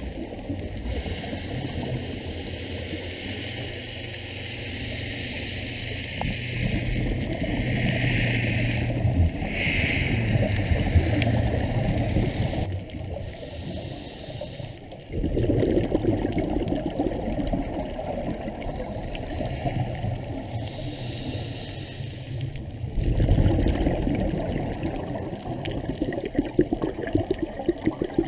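Underwater sound from a scuba diver's regulator: breaths drawn through it, then loud bubbling bursts of exhaled air, about halfway through and again near the end.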